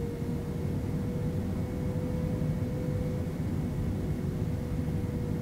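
Boeing 767 turbofan jet engines running steadily, heard through the cabin: a continuous low rumble and airy noise with a steady whine.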